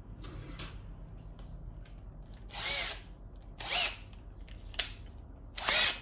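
Small electric drill run in three short bursts of the trigger, each a brief whir that rises and falls in pitch as the motor spins up and winds down.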